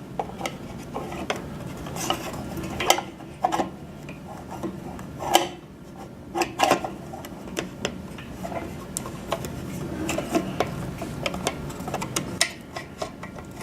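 Irregular light clicks, taps and clinks of small hardware being handled as SMA cables are pulled through the antenna hood, with connectors knocking against the radio and bracket, over a low steady hum.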